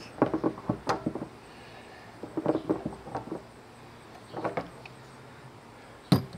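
Adjustable wrench tightening a bulkhead fitting in the wall of a plastic rain barrel: short spells of clicks and scrapes. A sharp knock near the end.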